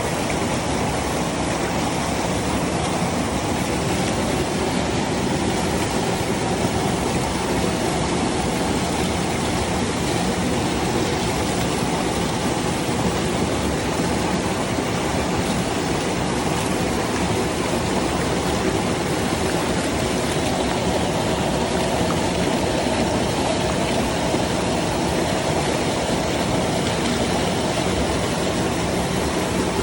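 Waterfall water rushing steadily.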